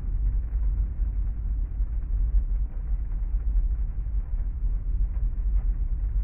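Rain ambience heard from inside a parked car: a steady deep rumble with a soft hiss of rain and faint scattered drop ticks.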